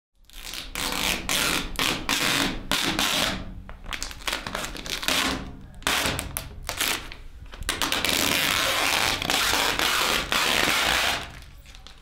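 Protective plastic film being peeled off a PC case's clear side window and handled, a run of crinkling and crackling that stops about eleven seconds in.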